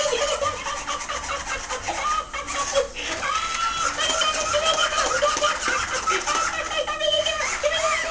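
Talking plush Elmo toy laughing in its high, cackling electronic voice, with held notes and quick breaks, keeping on without pause.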